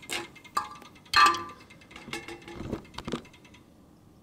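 Light metallic clinks and knocks, several at uneven intervals, each with a brief ring, the loudest about a second in: a pendulum clock's pendulum being unhooked and handled against the brass movement and bezel.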